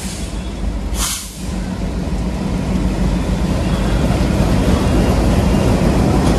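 Twin ALCO WDM-3D diesel locomotives running past at the head of a passenger train, their engines a steady low rumble that grows louder as they draw level. A short hiss about a second in.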